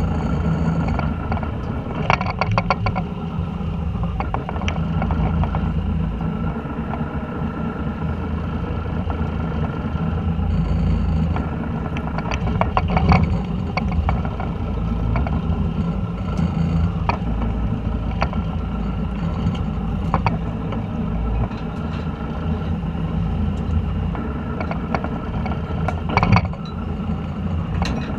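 A fishing boat's engine running steadily, a constant low drone, with a few sharp clicks and knocks on deck, the loudest just after two seconds, about thirteen seconds in and near the end.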